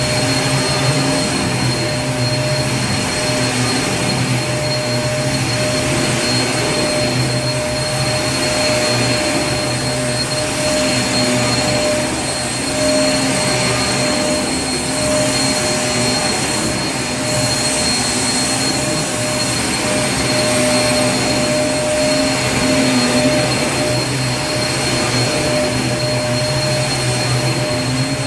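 Vacuum cleaner running steadily: a constant loud motor whine over a dense airflow hiss, with no change in speed.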